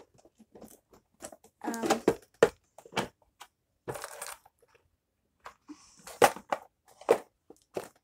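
Small plastic fidget toys and squishies being rummaged through by hand: scattered clicks, clatters and rustles with short gaps between them.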